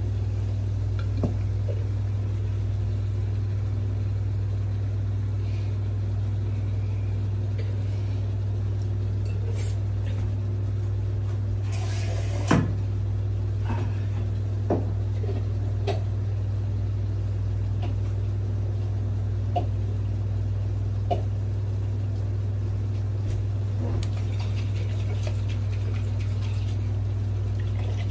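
Steady low hum that carries on unchanged, with a few light knocks and clatters of cookware and one short hissing rush about twelve seconds in.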